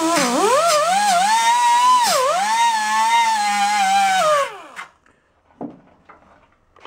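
Die grinder spinning a wire wheel against a steel flange, stripping it clean to bare metal ready for welding. Its high whine dips in pitch each time the wheel is pressed into the metal, then winds down about four and a half seconds in.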